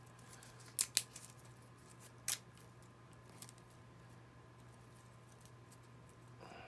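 Dry leaves crackling and rustling as hands lift them and pack them into a plastic tub, with three sharp crackles in the first two and a half seconds and quieter rustling after.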